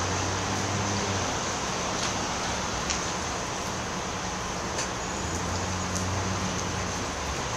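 Steady rushing noise with a low hum underneath and a few faint clicks.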